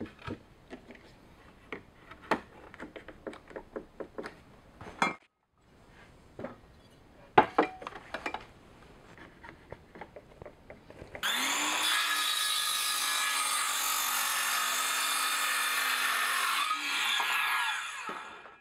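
A run of quick clicks and knocks as a trigger bar clamp is ratcheted tight and tools are set down on the bench. About eleven seconds in, a circular saw spins up and cuts through a cedar fence board for about five seconds, then winds down.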